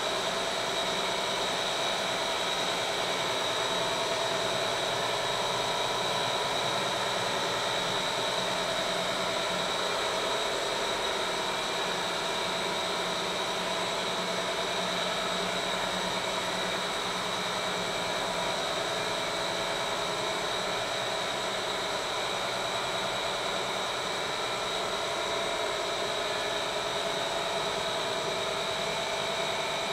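Plastic reprocessing line for making pellets (dana), running steadily: motors and machinery drone without a break, with a steady high whine over the top.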